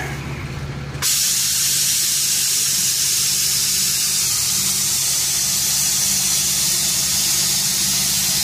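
Dump truck's diesel engine running steadily, with a loud, steady hiss that starts abruptly about a second in.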